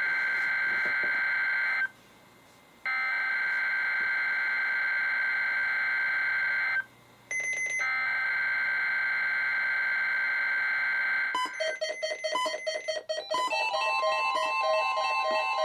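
NOAA Weather Radio SAME alert header: three harsh two-tone digital data bursts, each a few seconds long, separated by about a second of silence, with a brief high beep between the second and third. About 11 seconds in, the weather-radio receivers set off their alert beeps and chimes together, and a steady 1050 Hz warning alarm tone joins them a couple of seconds later.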